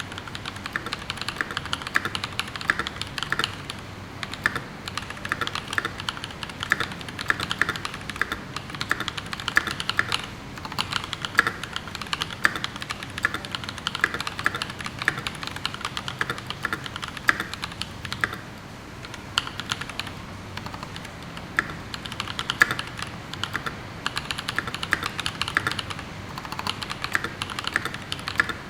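Fast, continuous typing on a CA66 mechanical keyboard with tactile Holy Panda switches (YOK Panda housings with Halo stems) and GMK keycaps: a rapid run of keystroke clacks, with a brief pause about two-thirds of the way through.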